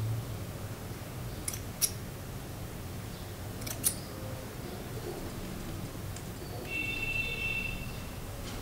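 Rusty spring-type sewing thread snips worked in the hand, their steel blades giving two pairs of sharp metallic clicks about two seconds apart. A brief high-pitched call about a second long comes near the end, over a steady low background hum.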